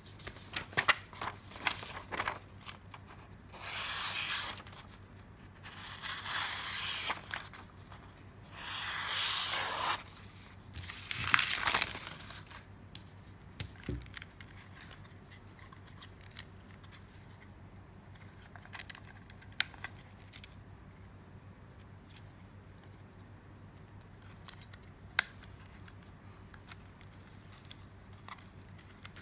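Small steel knife blade sliding into and out of a stiff Kydex sheath, four scrapes of about a second each, with sharp clicks from handling the sheath before them and a few single clicks afterwards.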